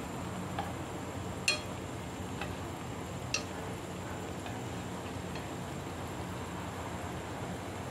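Sugary braising sauce sizzling and bubbling steadily around a whole chicken in a pan, with a few sharp ticks and pops. The loudest come about a second and a half in and again a little past three seconds.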